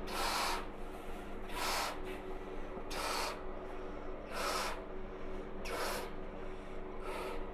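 A boy blowing up a balloon by mouth, breathing hard in a steady rhythm: six breaths about a second and a half apart, over a steady low hum.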